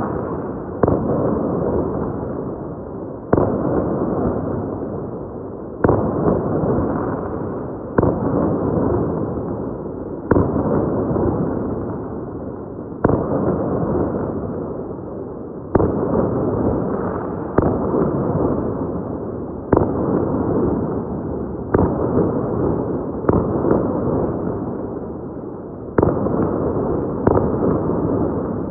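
Fireworks going off: a sharp bang every two seconds or so, each followed by a long crackling, rumbling tail that fades until the next. The bangs come closer together in the second half.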